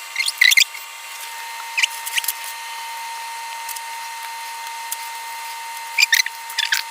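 Brief high-pitched squeaks and scrapes, in small clusters a few times, as pastry cutters are pressed into rolled-out dough on a board, over a faint steady hum.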